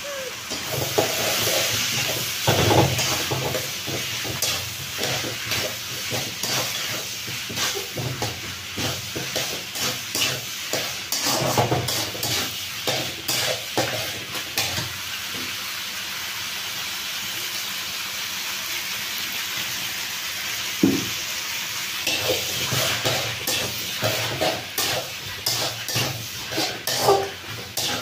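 Onion and capsicum sizzling in an aluminium kadhai while a metal spatula stirs them, scraping and clicking against the pan. The stirring stops for a few seconds past the middle, leaving the steady sizzle alone, then starts again.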